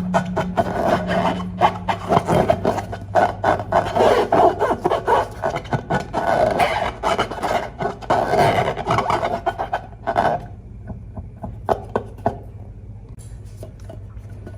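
Slime being squished and kneaded by hand: a dense, wet crackling and clicking that thins out to scattered clicks about ten seconds in.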